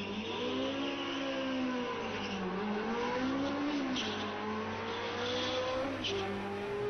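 Cars accelerating hard down a drag strip in a race, over a steady rush of track noise. The motor pitch rises and falls several times.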